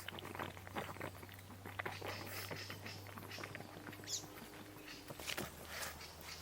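Light, irregular patter of small crackles and taps over a steady low hum, with a brief high chirp about four seconds in.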